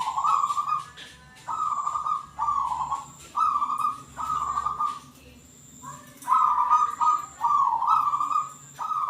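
Local perkutut (zebra dove) cooing: a run of short, rolling coos in quick succession, pausing about five seconds in and then starting again.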